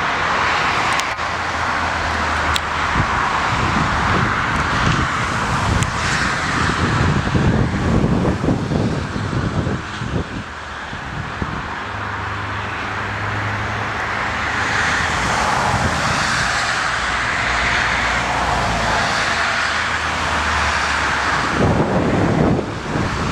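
Strong wind buffeting the microphone in gusts, over the steady rumble and rush of a landing airliner's engines.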